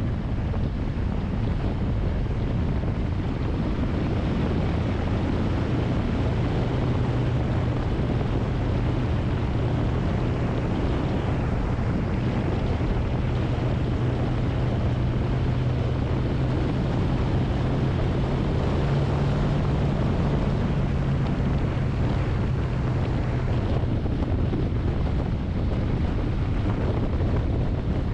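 Wind rushing over the microphone of a moving vehicle, with a steady low engine hum underneath that comes in a few seconds in, rises slightly in pitch about two-thirds through, and fades out near the end.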